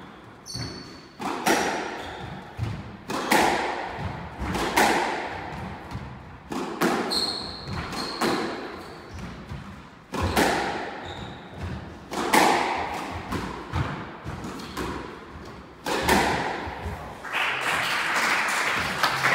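Squash ball being struck by rackets and hitting the court walls during a rally: sharp hits with a hollow echo, at an irregular pace of roughly one a second. Brief high squeaks from court shoes come in between.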